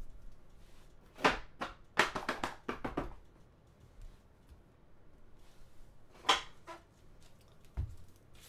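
Trading cards being handled and set down on a table: a quick run of sharp taps and slaps starting a little after a second in, two more around six seconds in, and a duller thump near the end.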